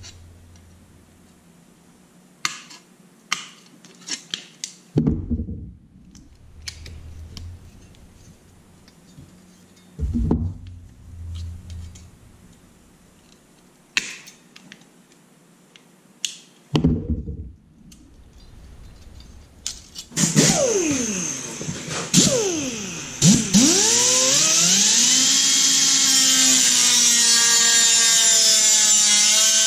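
Aviation tin snips cutting thin sheet steel in short, crisp snips with pauses between them. About two-thirds of the way through, a small die grinder with a cutoff wheel spins up with a rising whine, then runs steadily at speed as the wheel cuts through the sheet metal to finish a plasma-cut opening by hand.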